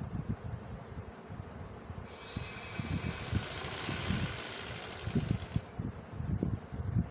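Motorised sewing machine stitching through cotton fabric. Its motor runs up to a steady high whine about two seconds in and stops suddenly near six seconds, over a low, uneven rumble throughout.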